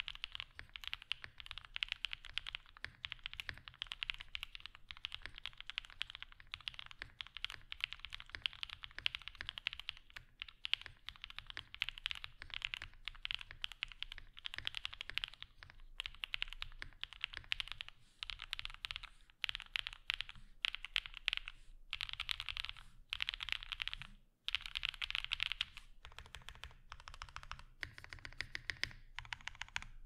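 Fast typing on a TG67 V2 mechanical keyboard fitted with stock Gateron Summertime V2 linear switches, straight out of the box: a creamy clack with a deeper tone from the keyboard. The keystrokes run in a dense stream, then in short bursts with brief pauses over the second half, stopping just before the end.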